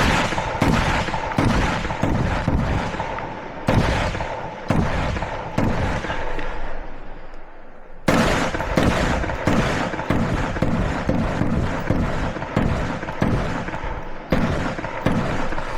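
Rifle shots in a rapid string of single shots, about two a second, each with an echoing tail. There is a short lull about six seconds in before the firing resumes at the same pace.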